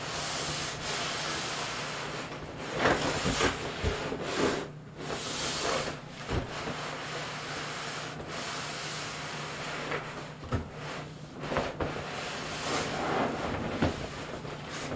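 Plastic raincoat rustling and the vinyl of an inflated pool rubbing as a person climbs over its side, coming in irregular swells with a short lull about five seconds in.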